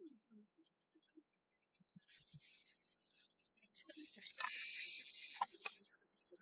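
Crickets chirping in a steady, high-pitched pulsing trill. A brief burst of hiss comes about four and a half seconds in.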